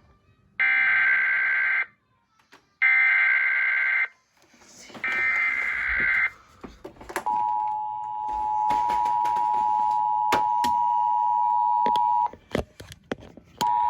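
Emergency Alert System severe thunderstorm warning being relayed: three raspy, screeching SAME digital header bursts, each about a second long, then the steady two-tone EAS attention signal. The tone cuts off about twelve seconds in and starts again just before the end, with a few sharp clicks scattered through it.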